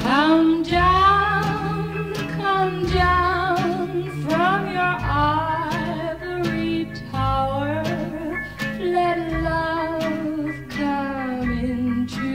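1950s pop ballad record with orchestra: a lead melody line with vibrato over sustained accompaniment and a walking bass.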